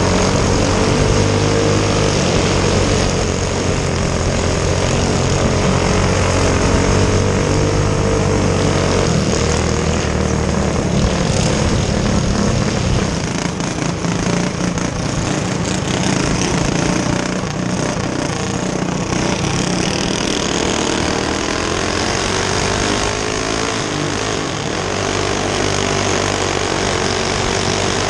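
Go-kart engines running at speed on a dirt track, their buzzing pitch rising and falling as they accelerate and lift.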